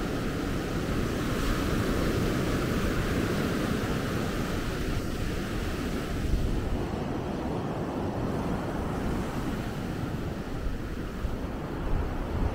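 Surf breaking and washing up the sand, a steady rushing hiss, with wind buffeting the microphone. The hiss of the surf thins out about halfway through.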